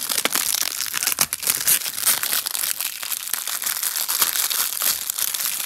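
Plastic shrink-wrap crinkling and tearing as it is peeled off a CD jewel case by hand: a continuous crackle of sharp clicks.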